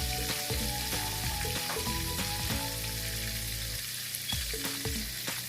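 Breaded chicken cordon bleu sizzling as it browns in a pan of hot oil and butter, with a few light clicks.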